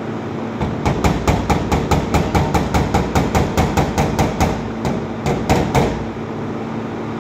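Small body hammer tapping lightly and quickly on a sheet-metal door panel, about five taps a second, working down stretched metal around a dent. A short pause near the end, then a few more taps before it stops.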